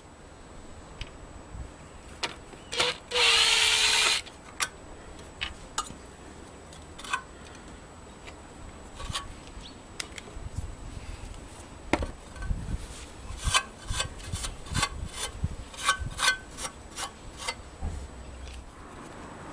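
Old rubber feet being worked out of an aluminium ladder stile and the stile handled: a loud rubbing squeal about three seconds in, then scattered clicks and knocks, more frequent in the second half.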